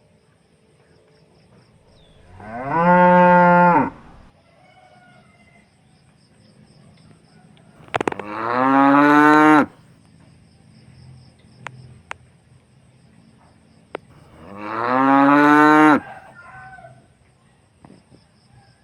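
Cows mooing: three long moos, each one to two seconds, about six seconds apart, with faint clicks in the gaps.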